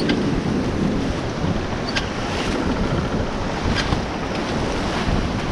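White-water rapids rushing around a paddled raft, with wind buffeting the microphone. A few brief sharp hits stand out over the steady rush, about two seconds apart.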